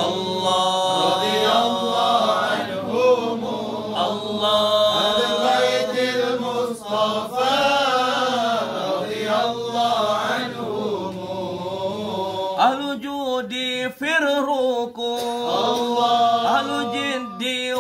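A group of men chanting an Arabic devotional litany together, long drawn-out melodic lines with several voices overlapping.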